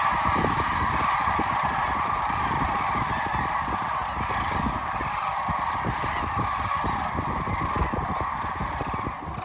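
A huge flock of sandhill cranes calling together: a dense, unbroken chorus of rolling calls, with a low gusty rumble underneath.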